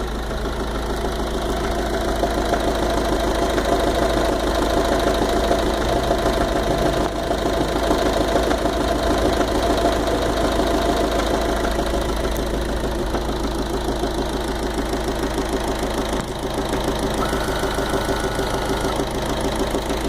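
Fiat 500 Dualogic engine running at idle with a fast, even knocking rhythm. A mechanic takes the noise for worn engine bearings or a failing water pump.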